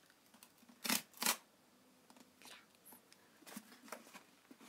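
Cardboard book mailer being ripped open along its tear strip: two short, sharp rips about a second in, then faint rustling as the cardboard is handled.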